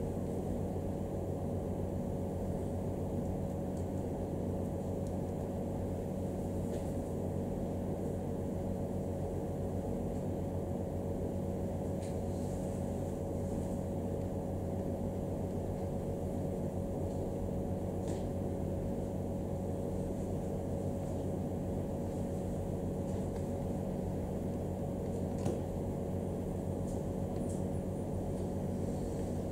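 Steady low hum and hiss of room noise with a few faint clicks about a third, two thirds and most of the way through.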